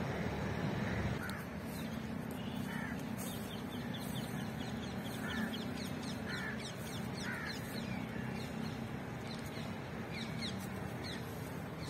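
Crows cawing every second or two, with small birds chirping in rapid high notes, over a steady low hum.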